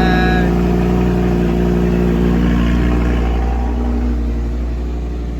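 Audi R8's V10 engine running at a high cold-start idle. About two and a half seconds in the pitch drops and it settles to a lower, slightly quieter idle.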